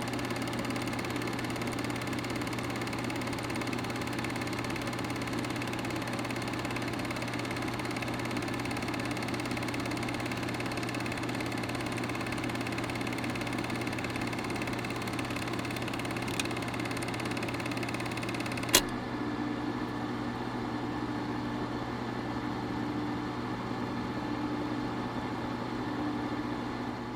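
Vintage film projector running: a steady mechanical whir over a constant hum, with fast clicking of the film advance. A single sharp click comes about two-thirds of the way through. After it the sound is duller, with a faint pulse about once a second.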